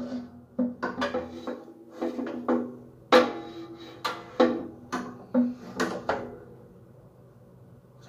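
Music: a run of short struck percussive notes, one to three a second at uneven spacing, that stops about six and a half seconds in.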